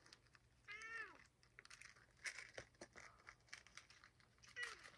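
Domestic cat meowing: one drawn-out meow that falls in pitch about a second in, and a shorter one near the end.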